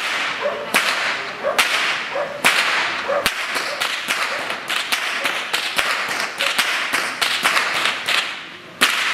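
A group of traditional Goaßl whips cracked in rhythm by several whip crackers: a loud sharp crack a little under once a second, with fainter cracks in between. The cracking thins out near the end, then one loud crack comes just before the end.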